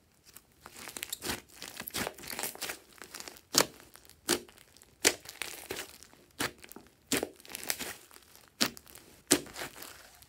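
Thick slime with foam beads mixed in being kneaded and stretched by hand: a run of sticky crackling and squelching, broken by sharp pops as trapped air bubbles burst, the loudest few about a second apart.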